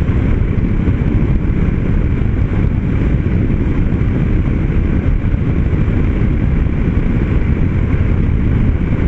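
Yamaha Ténéré 250 motorcycle cruising steadily on the highway: a low, even rush of wind and road noise with the single-cylinder engine running underneath, without letup.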